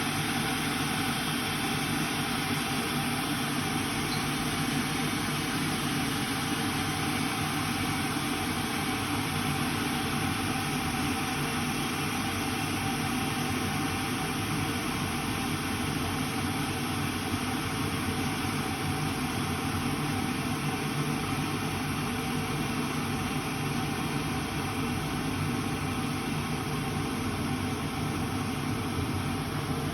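Kitfort KT-6121-1 electric kettle heating water towards the boil: a steady, even hissing rumble, moderately noisy.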